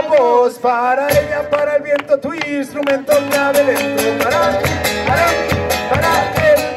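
A man singing a song live, accompanying himself on a strummed acoustic guitar.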